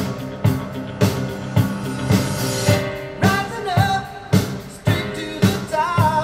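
A rock-style song with a steady drum beat, guitar and a sung vocal coming in about three seconds in, played back through Polk Audio RTi A3 bookshelf speakers and heard in the room.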